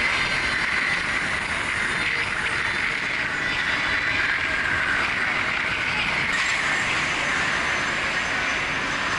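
Steady rushing, mechanical noise from riding a spinning chair swing ride, with a faint high whine that dips and rises.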